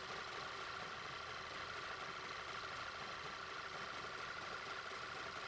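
Audi A3 engine idling with a steady suction hiss of air being drawn in through a leak in the intake system. The unmetered air is the sign of a vacuum leak behind misfires across the cylinders, which the mechanic suspects comes from a damaged oil separator membrane.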